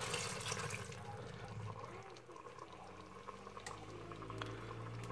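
Water poured from a measuring cup into a hot stainless Instant Pot inner pot onto sautéing chicken, loudest in about the first second, then fading. Quieter stirring with a wooden spatula follows.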